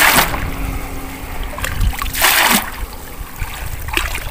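Scoop net sweeping through shallow muddy pond water: two splashy swishes, one right at the start and another a little over two seconds in, as the net is pushed and lifted among the grass to dredge up leeches.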